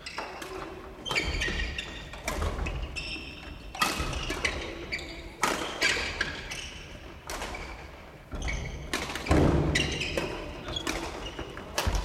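Badminton rackets striking shuttlecocks in several rallies at once: sharp smacks about once a second, irregular, echoing in a large gymnasium.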